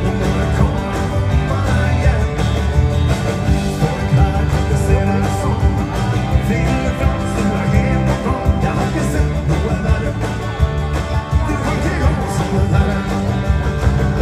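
Live band playing an upbeat danceband rock-and-roll number: drums, bass, and electric and acoustic guitars with keyboards, in a steady, driving beat.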